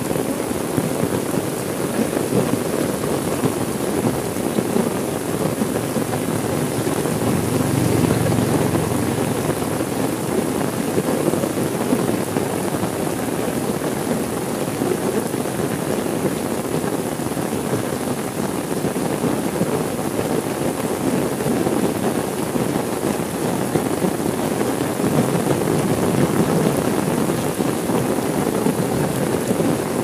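Heavy rain falling steadily on a window, with a low rumble of thunder swelling briefly about eight seconds in.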